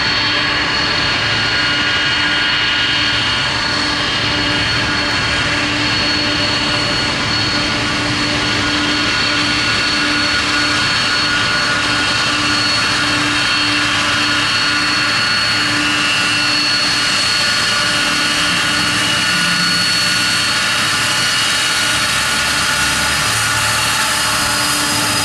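Four Pratt & Whitney PW4056 turbofans of a Boeing 747-400 at high power during its take-off roll: steady, loud jet noise with several high, whining fan tones held throughout.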